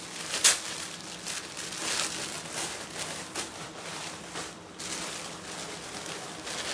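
Plastic garment bags crinkling and rustling as clothes are handled and pulled from a pile, with a sharp crackle about half a second in.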